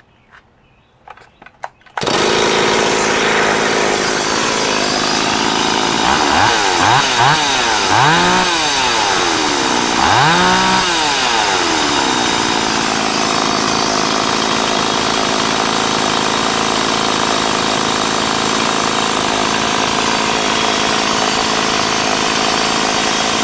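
Stihl 026 two-stroke chainsaw running: after a couple of seconds of faint clicks it comes in suddenly at idle, is revved up and down four times in quick succession, then given one longer rev, and settles back to a steady idle. The owner says it runs good.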